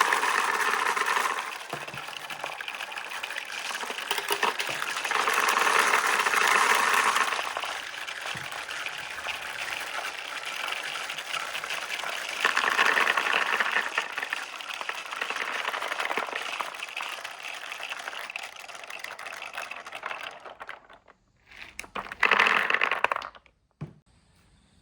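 Glass marbles rolling and clattering down the slopes of a marble run: a continuous rattle that swells louder several times, then cuts off shortly before the end.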